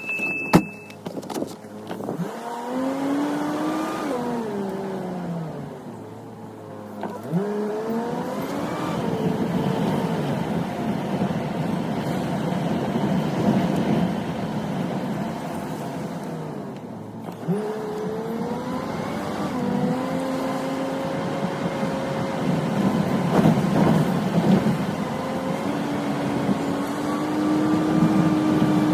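Pickup truck engine pulling away and accelerating. Its pitch climbs, drops sharply at each upshift (twice), then holds steady at cruising speed over road noise. A couple of clicks and a short beep come at the very start.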